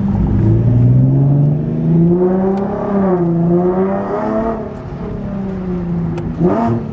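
Modified Nissan 370Z's 3.7-litre V6, breathing through high-flow cats and a GTHaus Meisterschaft axle-back exhaust, heard from inside the cabin under way. The revs climb for about two seconds, ease and climb again, then fall away, with a short sharp blip of revs near the end.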